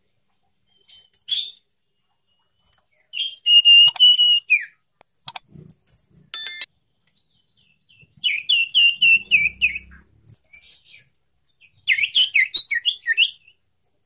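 Young common iora (sirtu) calling: a short note, then one long whistled note that dips at its end, followed twice by a quick run of repeated whistled notes lasting over a second each.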